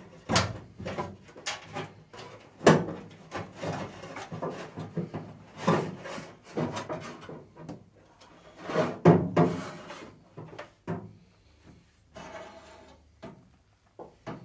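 Plastic washer hose being pulled through the inside of a car's front wing, with irregular rubbing and scraping and scattered knocks against the panels.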